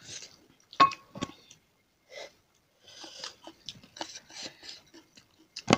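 Close-up eating sounds: chewing and the soft crackle of fingers mixing rice and curry on a plate. A spoon clinks against a dish about a second in, and a louder knock comes near the end.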